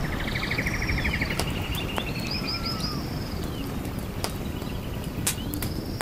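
Forest ambience: birds singing over a steady low background rush. A fast, even trill comes first, then strings of quick, high, looping notes, with a few sharp ticks in between.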